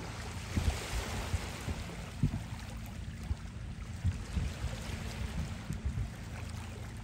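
Small waves lapping and washing over rounded shoreline stones, with wind buffeting the microphone in gusts.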